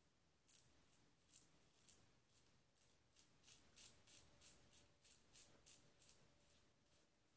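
Copper Ascension double-open-comb safety razor taking short strokes through three-day stubble on the neck: a run of faint, crisp scratches, irregular at first, then about three a second in the middle.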